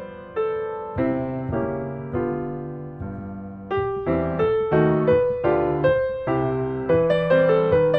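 Background music: a gentle piano or electric-piano melody with a bass line, notes struck and left to ring out.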